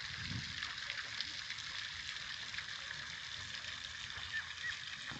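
Water birds calling faintly, with two short high calls near the end, over a steady hiss full of faint ticks.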